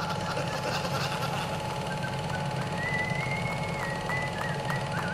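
A steady low mechanical drone with a constant hum, and a thin high whistling tone that comes in about three seconds in and wavers near the end.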